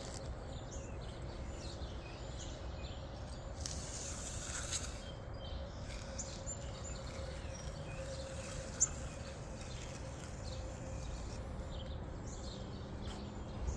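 Outdoor ambience of birds chirping over a low steady rumble and a faint steady hum, with a brief hiss about four seconds in and a single sharp tick near nine seconds.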